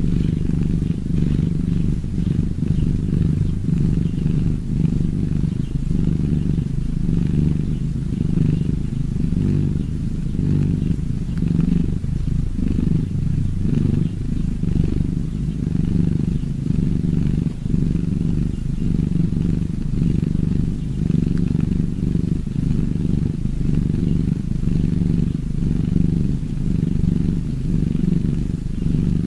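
Cat purring, a low, steady purr that runs on without a break.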